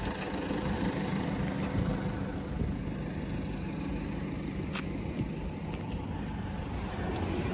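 Diesel engine of a backhoe loader running steadily at low revs.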